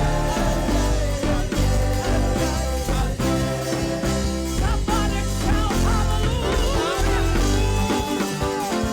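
Praise-and-worship band music with strong bass and a steady drum beat.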